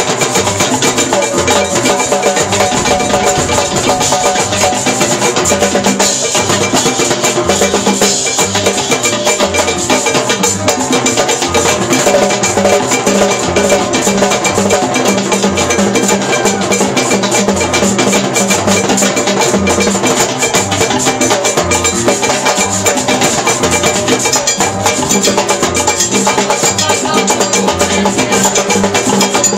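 A live band playing percussion-driven music, with congas and other hand percussion over a repeating bass line, steady and loud throughout.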